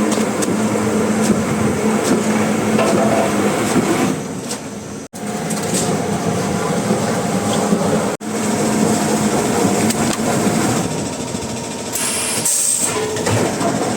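Woodworking machinery running with a dense mechanical clatter, broken by two sudden dropouts about five and eight seconds in.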